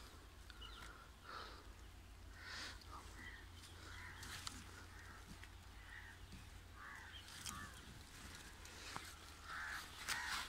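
Crows cawing, faint at first and then louder, with the caws coming in a quick run of about four near the end. A few sharp clicks are heard among them.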